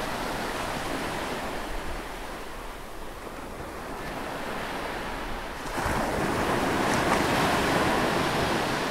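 Ocean waves washing in, one surge growing louder about six seconds in and easing off near the end.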